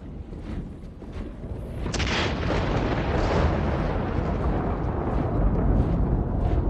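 A thunderclap about two seconds in: a sharp crack followed by a long, low rumble of thunder that rolls on.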